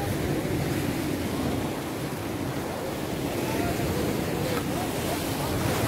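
Sea surf washing and breaking against rocks, a steady rushing noise.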